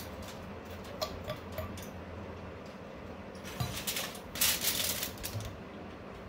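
Handling of a bakhoor incense burner: small clicks and clinks as its gold metal cup insert is lifted out, then a louder rustling burst of handling over the aluminium foil sheet about four and a half seconds in.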